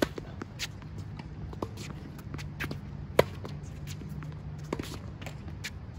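Tennis racket hits and ball bounces on an outdoor hard court: a serve struck at the very start, fainter hits and bounces as the rally goes on, and the loudest crack, a forehand, about three seconds in. Shoes shuffle on the court between shots over a steady low hum.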